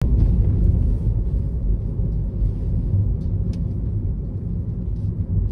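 Steady low rumble of road and tyre noise heard inside the cabin of a moving Tesla Model 3, an electric car with no engine note. A few faint clicks come about three seconds in.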